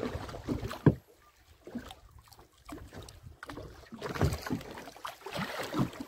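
Water slapping against the hull of a small open boat drifting at sea, with scattered knocks and clicks from the boat and the fishing gear, the sharpest about a second in, and wind on the microphone.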